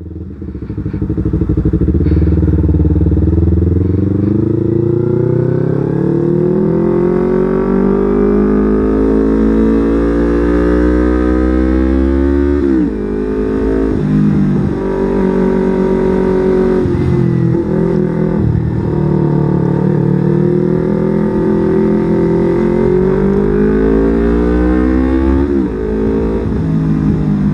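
Yamaha R25's 250 cc parallel-twin engine under way, its pitch climbing steadily for about twelve seconds as the bike accelerates. The revs then fall away suddenly a few times before building and holding again.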